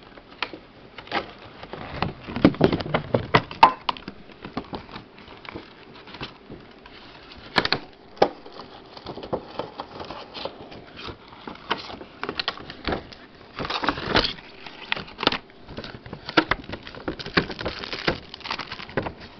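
Plastic packaging crinkling and crackling as it is handled, with small hard plastic tools clicking and knocking onto a table in irregular bursts, thickest a couple of seconds in and again past the middle.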